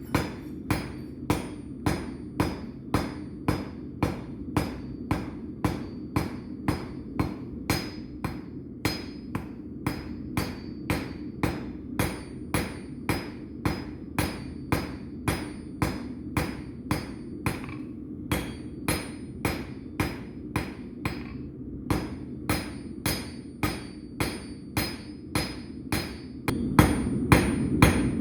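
Blacksmith's hammer striking hot steel on an anvil, forging at a steady rhythm of about two blows a second, each blow ringing briefly.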